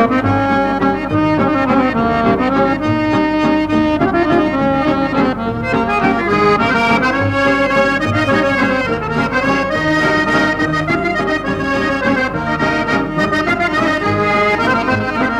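Background instrumental accordion music: a melody of held notes over chords, played steadily.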